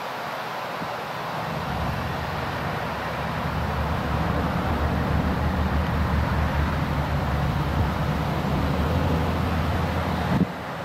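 Diesel engine of a classic long-hood semi tractor running as the truck drives past. Its low, steady note grows louder from about two seconds in and cuts off abruptly near the end.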